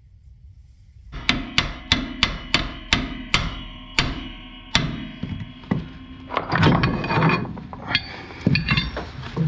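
Hammer blows on a steel bar set against the differential carrier in a Dana 30 axle housing: about ten sharp, ringing metal strikes, roughly three a second and spacing out. They are followed by a few seconds of metallic clatter and scraping.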